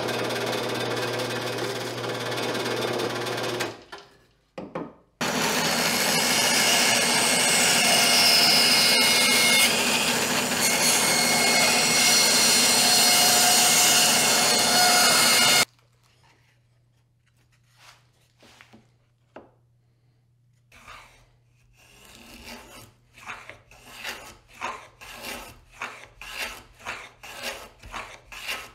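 A drill press runs while its bit bores into a block of wood, stopping after about four seconds. A band saw then runs and cuts through a wood board for about ten seconds and cuts off suddenly. After a pause with a few light clicks, a plow plane cuts a groove along a board in quick strokes, about two a second, growing louder.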